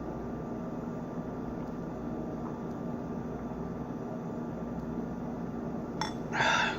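Steady low machine hum in a small room, with several held tones, like a fan or appliance running. Near the end comes a short noisy sound lasting under a second.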